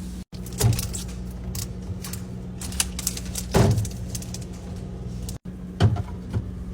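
Food containers and bottles being set onto refrigerator shelves, making a handful of knocks and clinks, three of them louder, over a steady low hum. The sound drops out for an instant twice.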